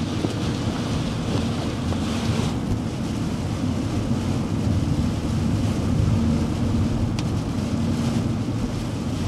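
Steady rushing road and storm-wind noise of a truck driving through a hurricane, with a low drone underneath.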